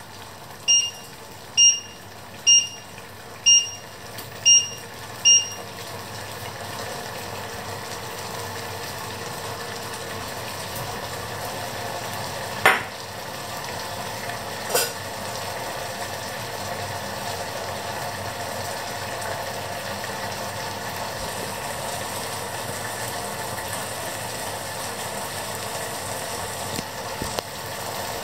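An electric glass-ceramic hob's touch controls beeping six times, about once a second, as the heat setting is changed. Then a steady sizzle of food cooking in the pots, with two sharp knocks a couple of seconds apart near the middle.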